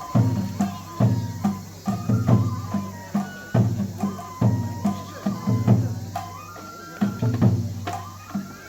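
Japanese festival music accompanying a lion dance: drums struck in a repeating rhythmic pattern, with a high wind melody of held notes above them, typical of a bamboo flute in a matsuri-bayashi ensemble.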